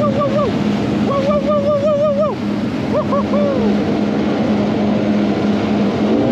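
Jet ski engine running steadily while a high, wavering voice hoots over it in three undulating phrases, the last ending a little under four seconds in.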